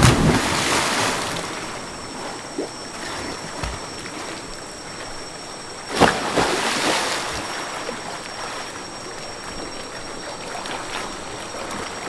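Rushing river water, a steady noisy wash that surges suddenly louder at the start and again about six seconds in.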